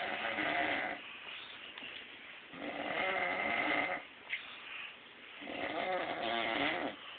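A man snoring in his sleep: three long snores, one about every three seconds, each lasting around a second and a half.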